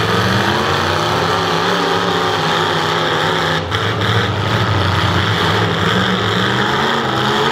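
Several demolition derby cars' engines running and revving together: a loud, steady engine drone whose pitch wavers up and down as the cars drive and push against each other.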